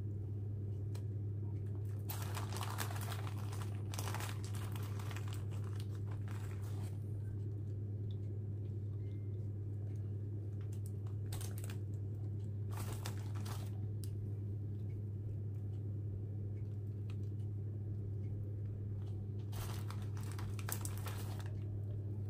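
Plastic bag of grated cheese crinkling in several short bursts as it is handled and cheese is sprinkled over mussels on a baking tray, over a steady low hum.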